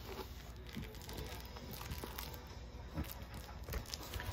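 Bulldog chewing and mouthing a plush toy: soft, irregular crinkling and rustling of the fabric with scattered small clicks, a few louder ones in the last second or so.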